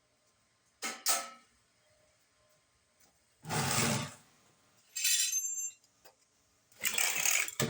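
Scattered handling sounds: a pair of quick metallic clinks about a second in, a scuffing shuffle, another ringing metal clink, then a last scuff near the end, as a person settles down onto a garage floor with welding gear.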